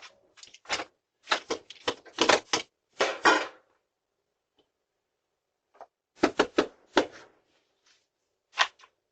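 Sharp knocks and bangs at a door, picked up by a doorbell camera's microphone. They come in quick clusters: a run in the first few seconds, a pause, more at about six to seven seconds, and a pair near the end.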